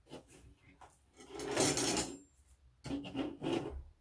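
Tableware being handled on a tabletop: a long rasping scrape about a second in, then two shorter rubbing scrapes near the end, as the plate and metal spoon are slid and picked up.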